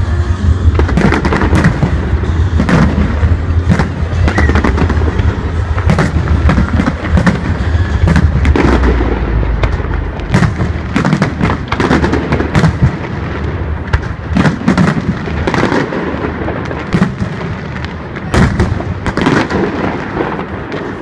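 Fireworks display: many sharp bangs of aerial shells bursting at irregular intervals, over a heavy low rumble during the first half, growing quieter toward the end.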